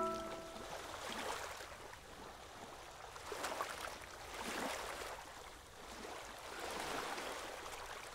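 Gentle water lapping in soft, irregular washes that swell and fade every second or two. The last held notes of a music track die away right at the start.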